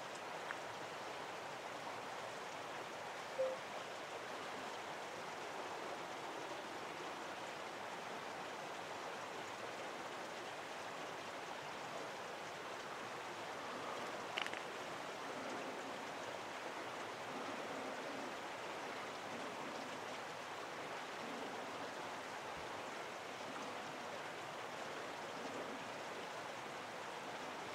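Steady outdoor rushing noise at night, even and without any rhythm. A short faint tone stands out about three seconds in, and a brief sharp sound about halfway.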